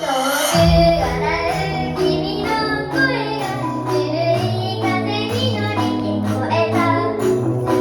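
A young female voice singing a J-pop idol song over a backing track, with a heavy low bass hit about half a second in.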